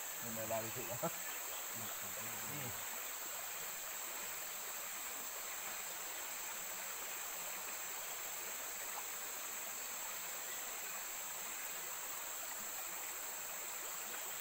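Steady high-pitched drone of forest insects over the rush of a shallow stream, with a few low voices in the first three seconds.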